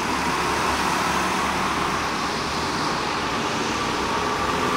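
Several go-kart engines running together as the karts lap an indoor track, a steady drone with the hall's echo around it.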